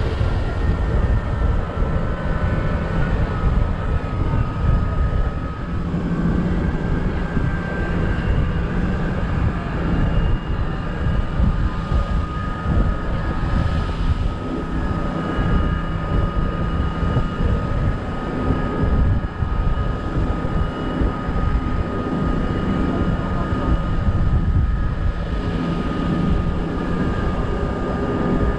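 Open-top double-decker bus driving along, heard from its open upper deck: a steady engine and drivetrain drone with a constant high whine, under heavy wind buffeting on the microphone.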